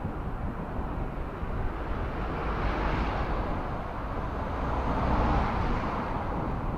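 Motor vehicles passing on the road alongside: a broad rushing noise swells about two seconds in, peaks twice and fades near the end, over a steady low rumble.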